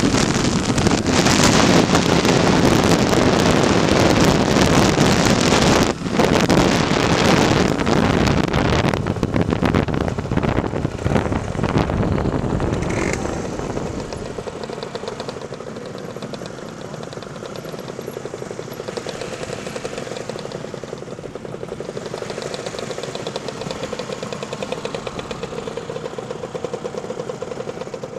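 Wind rushing over the microphone together with a two-stroke Lambretta scooter engine under way. It eases off about twelve to fourteen seconds in as the scooter slows and stops, then the engine idles steadily.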